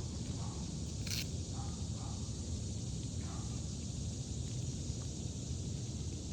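Steady low outdoor rumble on a rooftop, with one short scrape about a second in.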